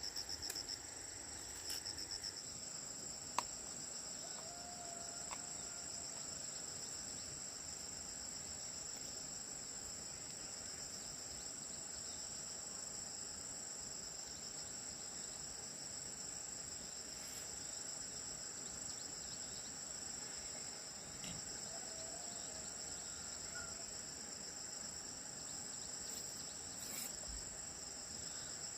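Insects chirring in a steady, high-pitched chorus. A faint animal call comes twice.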